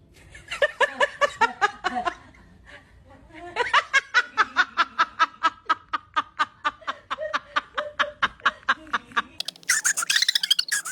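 A person laughing in quick, rhythmic bursts: a short laugh, then a longer, sustained one, turning higher-pitched near the end.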